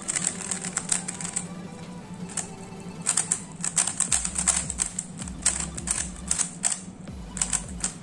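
Cubelelo Drift 3x3 speed cube being turned quickly by hand, its plastic layers clacking in fast runs of clicks: the clacky turning sound of this budget stickered cube.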